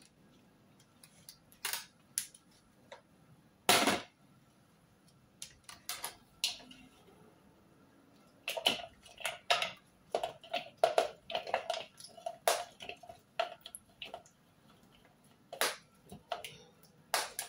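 Kitchen clatter: a bowl knocks down onto a tray about four seconds in, then a metal spoon clinks and scrapes against a glass serving dish as chopped fruit and vegetables slide off it into the bowl, in a run of quick clinks over the second half.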